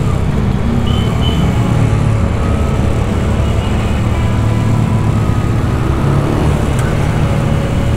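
Bajaj Dominar's single-cylinder engine running steadily at low speed, its pitch shifting slightly, under the rumble of tyres rolling over cobblestones.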